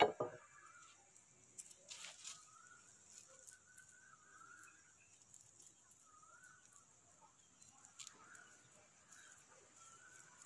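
One sharp knock as a knife blade strikes an old rechargeable battery, then faint clicks and rustles as the split battery casing and its inner layers are pulled apart by hand. Birds chirp faintly throughout.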